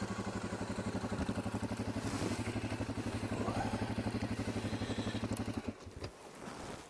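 Suzuki KingQuad 750 ATV's single-cylinder engine running at low speed with an even, pulsing beat, with gravel under the tyres. The engine stops near the end.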